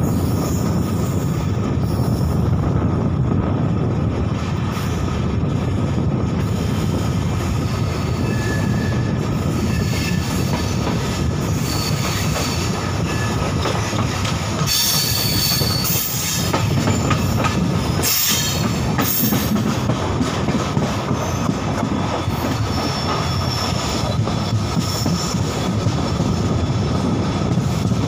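Steady rumble of a moving passenger train's wheels on the rails, heard from an open coach window. About halfway through come two spells of high wheel screeching, each lasting a second or two.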